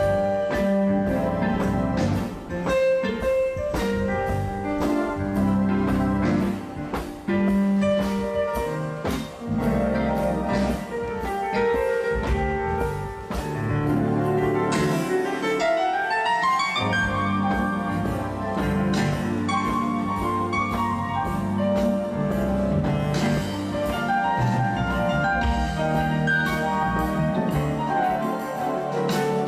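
A band playing live at a soundcheck: piano leads over bass and drums with a steady beat, and a quick rising run of notes on the piano about halfway through.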